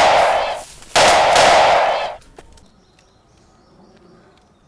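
Two loud bursts of gunfire, the first under a second long and the second just over a second, ending about two seconds in.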